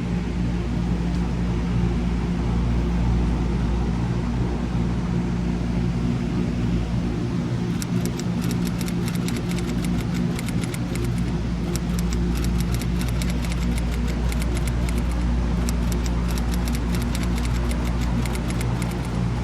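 Laundromat washers and dryers running: a steady mechanical hum, joined about eight seconds in by a rapid, irregular clicking and rattling.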